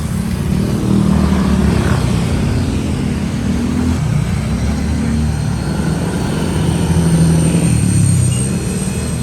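A motor vehicle engine running steadily, its pitch rising and falling a little.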